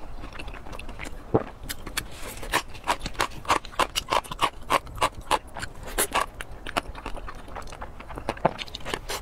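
Close-miked mouth sounds of someone eating braised pork hock: wet lip smacks and chewing clicks, coming thick and fast through the middle.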